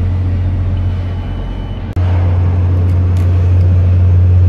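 Crawler crane's diesel engine running, a steady low drone. It breaks off for an instant about two seconds in and resumes slightly louder.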